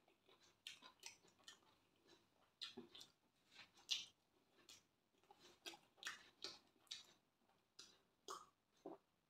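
Close-miked eating sounds of sweet fried plantain being bitten and chewed: soft, irregular crunches and mouth clicks, the loudest a bite about four seconds in. Near the end come a couple of gulps of water.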